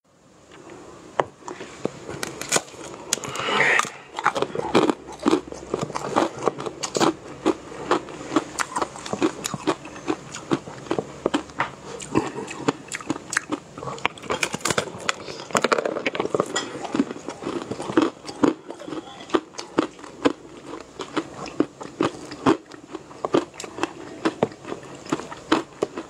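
Close-miked crunchy biting and chewing of small, hard, round food pieces. Sharp, irregular crunches come several times a second throughout.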